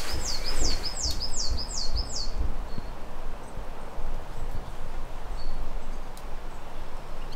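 A songbird singing a quick run of about seven high, falling notes over the first two and a half seconds, followed by a couple of faint single notes later on. An uneven low rumble runs underneath.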